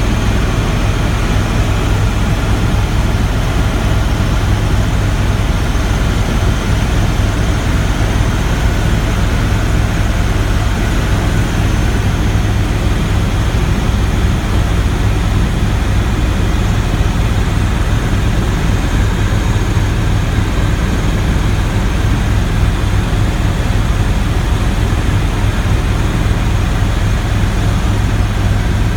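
Helicopter engine and rotor noise heard from inside the cabin, a loud, steady, deep drone that does not change.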